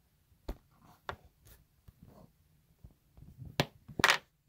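A few light clicks and taps spread out, then a louder knock and a short rustling scrape near the end.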